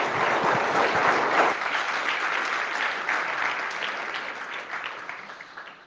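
Audience applauding, heaviest in the first second and a half, then thinning out and dying away near the end.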